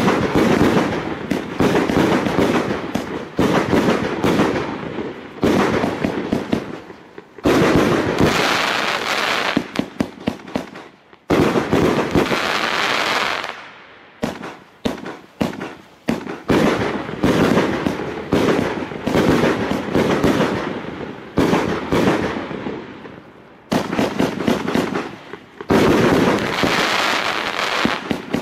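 A 100-shot, 30 mm consumer fireworks cake firing from close by: rapid runs of launch thumps and bursts come in waves every few seconds, each trailing off into a crackling hiss as the stars burn out.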